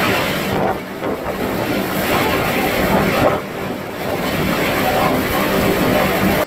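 Hurricane wind with driving rain, a loud steady rush that eases briefly about a second in and again around three and a half seconds in.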